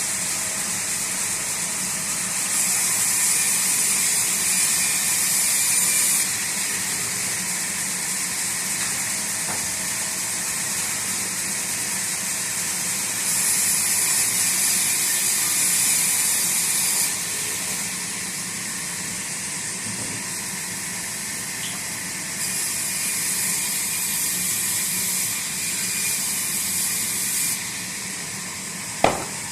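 Sawmill machinery running steadily with a constant low hum. Three times, a louder high hiss comes in for a few seconds and then drops away, and a single sharp knock comes near the end.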